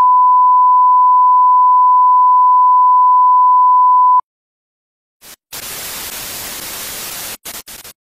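A loud, steady, high beep tone held for about four seconds and cut off sharply, then after a short silence a burst of static hiss that breaks up into a few short stutters near the end.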